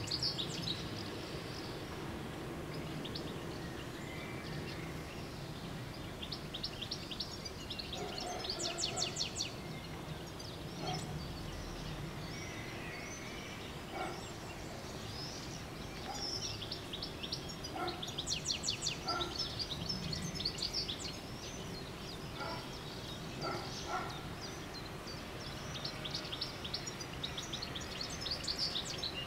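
Small songbirds singing, with bursts of rapid high trills that recur every several seconds, over a steady low outdoor background hum.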